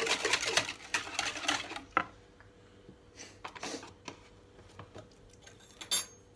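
Wire whisk beating thin pancake batter in a plastic bowl, a fast run of clicks and scrapes against the bowl that stops about two seconds in with a sharp click. A few faint knocks and rustles follow, with one more click near the end.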